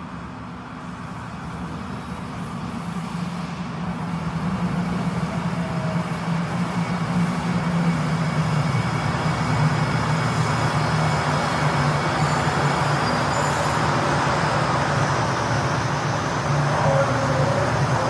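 Metro train approaching. Its running noise grows louder over the first eight seconds or so, then holds steady and loud over a low hum.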